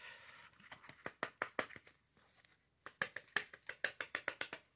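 Quick sharp taps and clicks as an old Master Marble cardboard box is knocked to free a glass marble stuck inside: a short run about a second in and a longer run near the end.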